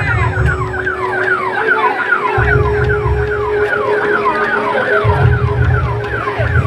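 Loud festival sound system playing dance music with a siren-like effect. The effect sweeps down in pitch about three times a second over a held note, while heavy bass beats come in and drop out every couple of seconds.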